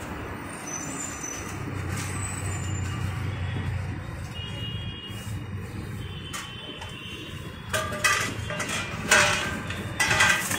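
Steady low rumble of road traffic, with several short harsh hissing noises near the end.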